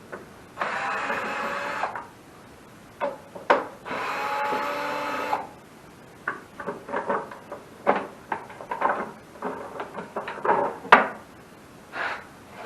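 Cordless drill/driver whirring in two short runs of about a second each, backing out fasteners from a mower's cover, followed by a series of clicks and clatters of metal parts being handled.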